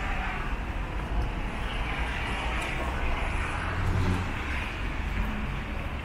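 Street ambience: a steady rush of road traffic, swelling slightly as a vehicle passes partway through.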